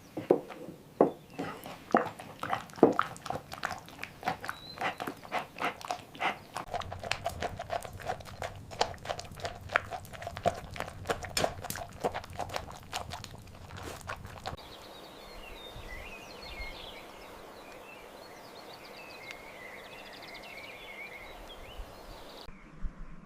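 Horse hooves clopping at a walk on hard ground, a long run of evenly spaced knocks that stops about fourteen seconds in, leaving a quieter steady background.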